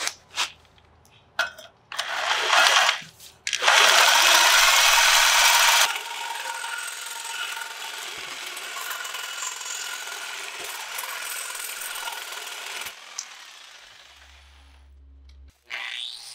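Reciprocating saw cutting through a rusted steel shock-mount stud on an axle bracket. It starts with a few short bursts of the saw, then about two seconds of loud cutting, then steadier, quieter cutting that fades out around thirteen seconds in. Near the end a different power tool starts up briefly.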